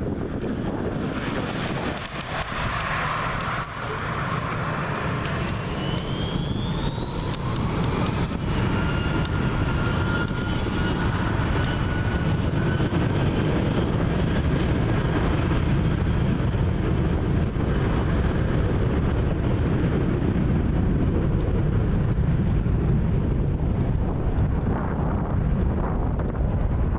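Jet airliner engines spooling up to takeoff power: a whine rising in pitch over a few seconds, then a steady loud jet roar with high whines above it. The airliner is most likely the Delta MD-90-30, with its two rear-mounted IAE V2500 turbofans.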